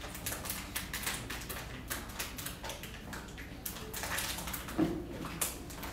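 Irregular clicks, knocks and scuffs of people moving about and settling into chairs in a room, with one louder thump about five seconds in.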